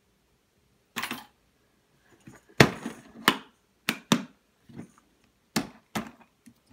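A tackle box and its contents being handled: a series of sharp clicks and knocks at irregular intervals, some in quick pairs, with light rustling between them.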